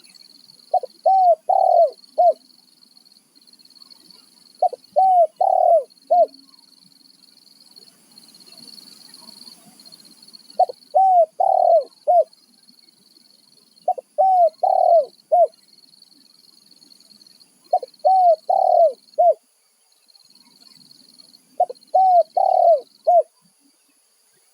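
Wild spotted dove (tekukur) cooing: six phrases of four or five short, rounded coos, repeated every three to four seconds.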